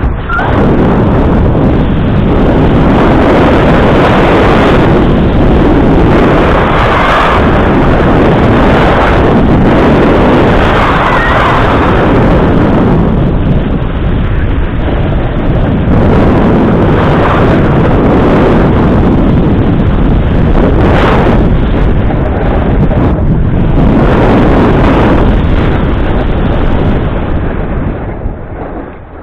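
Loud, rough wind noise buffeting a body-worn action camera's microphone while moving at speed down a run. It dies down near the end.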